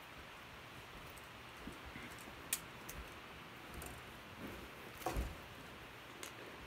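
Quiet room tone with faint handling noises: a few sharp clicks, and a low thump just after five seconds in, as a small hard object is handled and someone settles in front of the camera.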